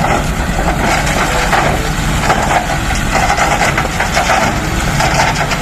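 Dump truck's engine running steadily, with the tipper body raised and its load of soil and rocks pouring off the back.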